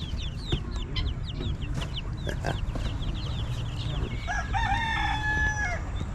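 Many baby chicks peeping together in quick, high, falling chirps. A rooster crows once, for about a second and a half, about four seconds in.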